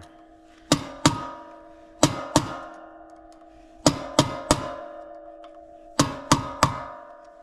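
Hammer blows on a screwdriver held against a carburetor tamper cap, driving the cap out to reach the fuel mixture screw. There are about ten sharp metal strikes in quick groups of two or three, and each rings briefly at a steady pitch.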